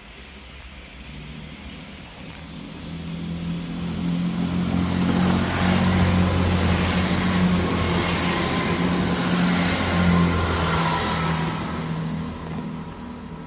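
A large vehicle passing by: a low engine hum and a broad rushing noise build over a few seconds, stay loud for several seconds, then fade away near the end.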